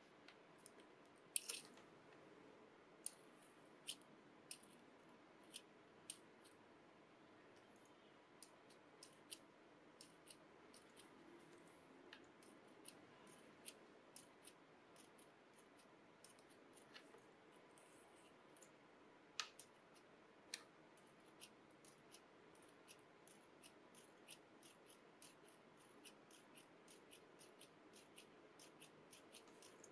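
Sharp little metal clicks from the clutch mechanism of a Koh-I-Noor Versatil 5900 all-metal 2mm clutch pencil as its push button opens and closes the jaws that grip the lead. The clicks come irregularly: a few loud ones, then a long run of lighter clicks about one or two a second.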